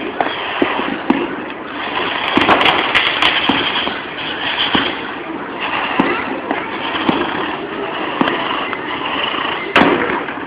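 Fireworks going off in a dense barrage: continuous crackling cut by many sharp bangs, with a louder burst near the end.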